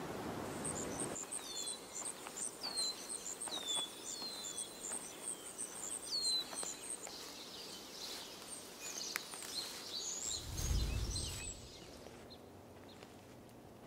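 Outdoor forest ambience: an even hiss for about the first second, then birdsong, a fast run of high repeated notes with several downward-sweeping whistles, followed by scattered chirps. A short low rumble comes about ten seconds in.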